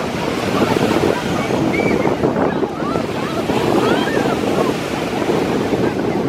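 Ocean surf washing in, with wind buffeting the microphone in a steady, loud rush.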